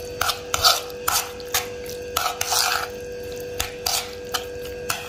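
Metal spoon stirring and scraping wet mashed fava beans around a metal bowl: about two irregular scrapes a second, over a faint steady hum.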